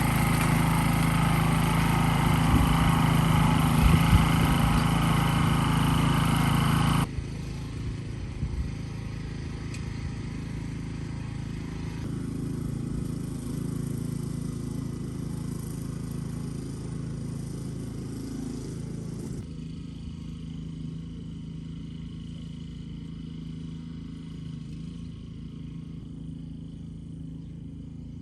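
Small engine running steadily at an even speed. The sound drops suddenly to a quieter level about seven seconds in, and again a little after the middle.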